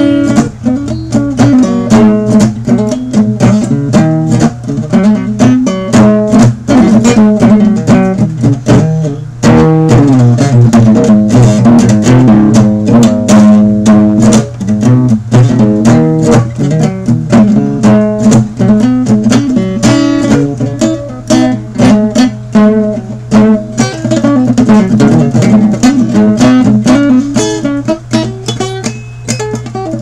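Steel-string cutaway acoustic guitar played solo and loud, with fast picked notes and strums over a steady low bass note.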